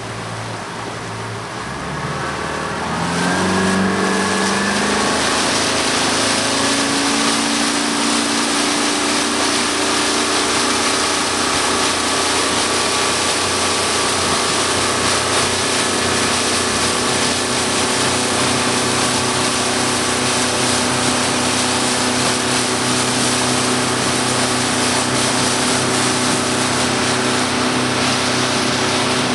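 Motorboat engine speeding up from a low idle about two to four seconds in, then running steadily at cruising speed. A loud, steady rush of water and wind lies over the engine once the boat is under way.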